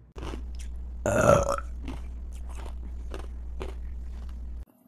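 A woman's single loud burp about a second in, lasting about half a second. It is followed by several short sharp clicks, over a steady low hum that cuts off suddenly near the end.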